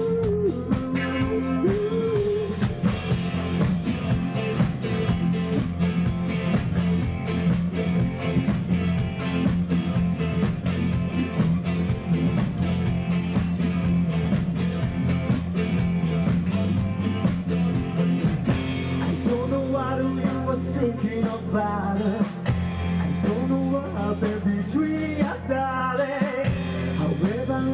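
Live rock band playing: electric guitars, bass guitar and drum kit at a steady beat.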